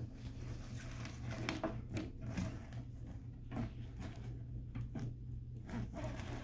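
Cardboard box scraping and rustling on a wooden floor as a cat pushes its head into it and shoves it along, with scattered light knocks. A steady low hum runs underneath.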